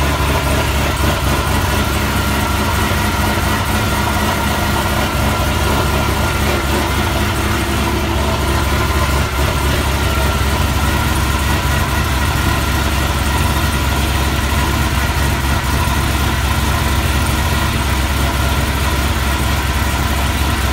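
Supercharged LSA 6.2 L V8, newly swapped into a 2014 Chevy SS, idling steadily.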